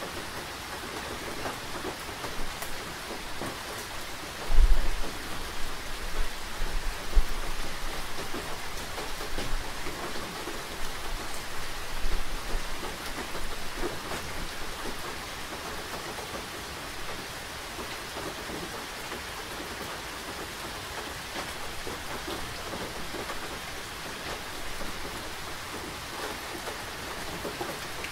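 Steady rain falling, an even hiss of drops, with deep low rumbles breaking in about five seconds in and again around twelve seconds.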